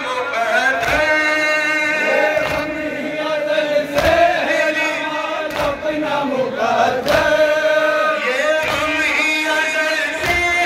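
A man sings a noha, a Shia lament, through a microphone and PA, with men's voices chanting along. Dull beats of chest-beating (matam) keep time, about one to two a second.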